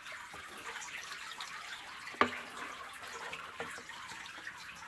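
Water trickling and dripping, with scattered small splashes and one sharp splash or knock a little over two seconds in.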